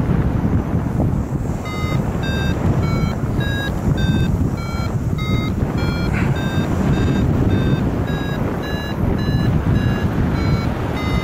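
Paragliding variometer sounding its climb tone: short beeps about two a second, starting about two seconds in, their pitch shifting up and down with the strength of the lift as the glider climbs in a thermal. Steady wind rush over the microphone underneath.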